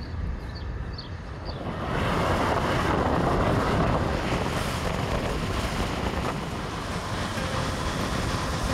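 Wind rushing over the microphone of a motor scooter on the move, over a low rumble of road and engine. The rush swells about two seconds in, then holds steady.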